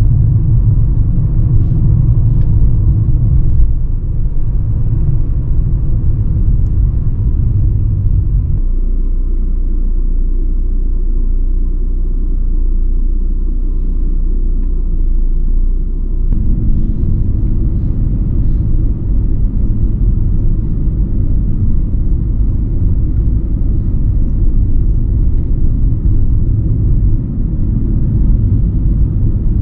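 Steady deep rumble of road and engine noise inside the cabin of a Mercedes-Benz W124 E320 on the move. The deepest part of the rumble eases for several seconds in the middle, then returns.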